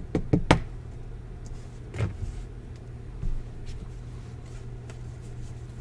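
Trading cards and plastic card holders being handled: a quick run of sharp clicks and taps at the start and another about two seconds in, over a steady low hum.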